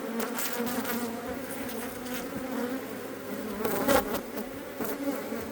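Honeybees from an opened hive buzzing in a steady, wavering hum, with a few sharp clicks about half a second and about four seconds in as brood comb is pulled from the wall.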